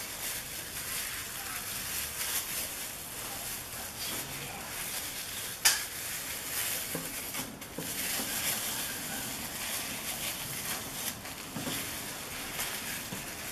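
Plastic cling film rustling and crinkling as a slab of soft butter dough is handled and peeled from it, with one sharp click near the middle.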